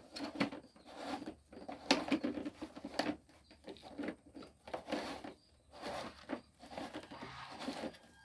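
Irregular rustling, scuffing and light knocks against a pet carrier's fabric and plastic, in short uneven bursts.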